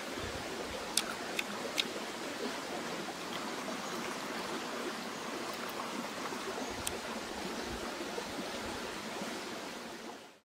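Steady, even rushing noise of outdoor ambience with a few sharp clicks about a second in and one near seven seconds. It fades out shortly before the end.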